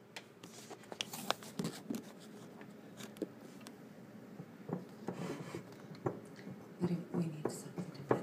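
Scattered light taps and clicks as a toddler handles a ceramic mug on a kitchen counter.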